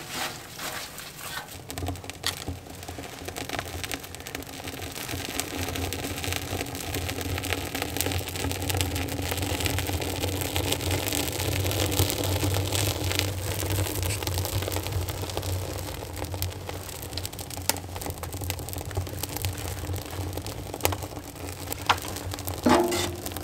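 Kindling fire of dry pine needles and twigs burning in a metal firebox. A low steady rumble of flame builds over the first few seconds, with scattered crackles and pops throughout.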